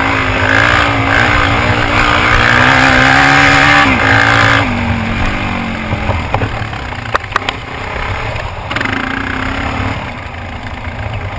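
Suzuki DR-Z400 single-cylinder four-stroke dirt bike engine running hard under throttle, then backed off about four and a half seconds in and running lower and quieter, with a few sharp clicks a couple of seconds later.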